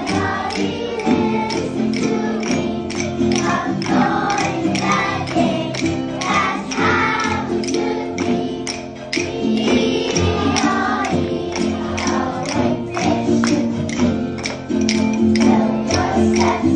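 A group of children singing a song together, with red rhythm sticks clicked in time, about two to three sharp clicks a second.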